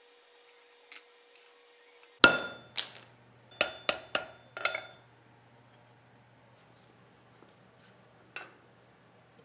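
Hand hammer striking a wrought iron san mai knife blade held in tongs on a steel anvil: six ringing metal blows in quick succession, the first the loudest. A single lighter metallic clink follows near the end.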